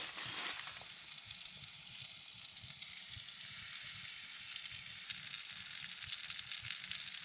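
New York steaks sizzling on a small wood stove's cooktop: a steady frying hiss with fine crackles throughout.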